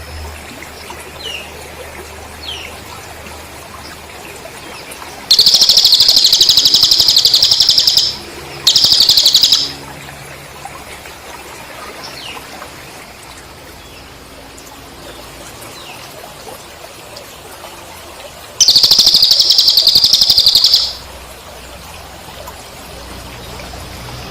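Cricket chirping in loud, steady-pitched trills of rapid pulses: two long trills of a few seconds each and one short one. Between them come faint, brief bird chirps over a steady hiss like running water.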